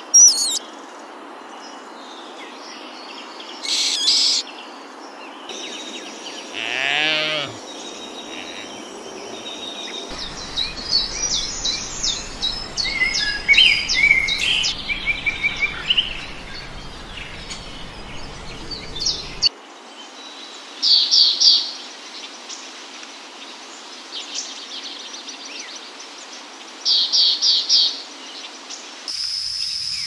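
Assorted birds calling and chirping over a steady background hiss, busiest in the middle, with short runs of rapid high chirps about two-thirds of the way in and again near the end. The background ambience shifts abruptly a few times.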